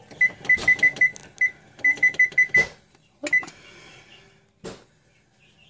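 Frigidaire range control panel beeping at each key press: about a dozen short, high, identical beeps in two quick runs and one more a little later, as the bake temperature is stepped up from 350 to 400 degrees. A single knock comes near the end.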